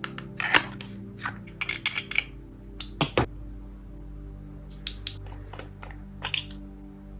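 Lip mask packaging and containers being handled: a string of sharp clicks and taps with short crinkles, over quiet background music.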